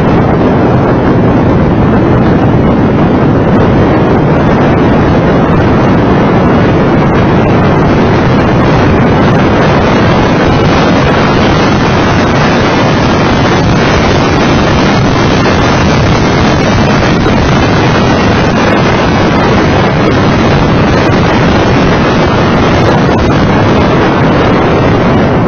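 Loud, steady wind buffeting on an outside-mounted camera microphone on a Mitsubishi FTO GPX at track speed, with the car's 2.0-litre V6 engine and tyre noise running under it.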